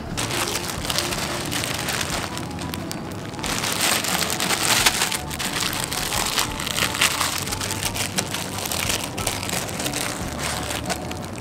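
Cubes of Spam sizzling and crackling as they fry in a pan, a steady spitting crackle full of small pops that grows a little louder a few seconds in.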